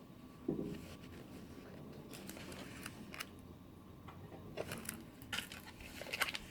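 Faint handling of plastic toy packaging: scattered light crinkles and clicks, growing more frequent toward the end, with a soft low thump about half a second in.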